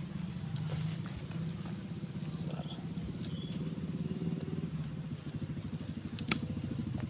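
A small engine runs steadily in the background with a fast even pulse. About six seconds in, pruning shears snip through a branch with one sharp click.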